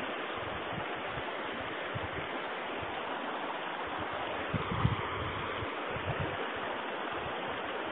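Shallow mountain stream running over rocks: a steady rushing of water, with a few brief low thumps about four and a half seconds in and again about six seconds in.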